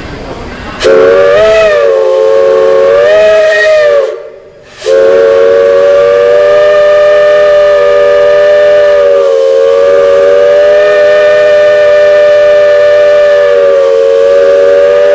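Steam whistle blowing: a short blast of about three seconds whose pitch wavers up and down, then after a brief break a long, steady blast of about ten seconds.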